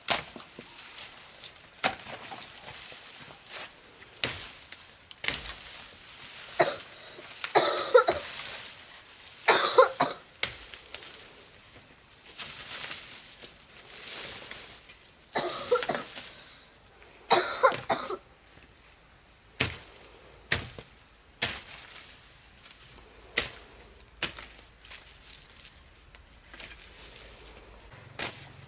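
A person coughing in a few short bouts, about eight and again about sixteen seconds in, among scattered sharp knocks and taps.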